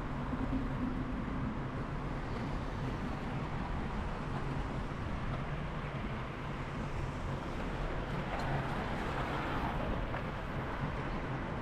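Steady low hum and rumble of a vehicle in motion, heard while riding along.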